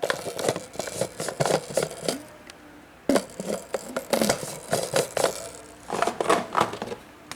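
Clattering, scraping knocks of coffee maker parts being handled: carafes, lids and reservoirs being taken off, set down and put back, in three busy bursts with short pauses between.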